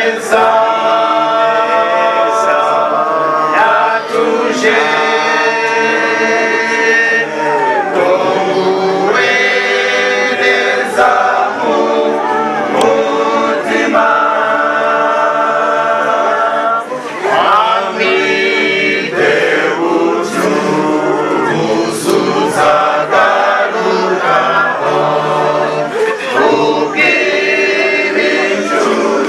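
A choir singing a cappella in long held chords, phrase after phrase, each lasting a few seconds.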